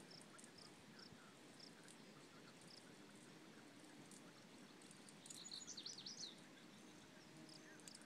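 Faint outdoor ambience of short, high chirps repeating about twice a second, with a brief louder flurry of high, wavering notes about five seconds in.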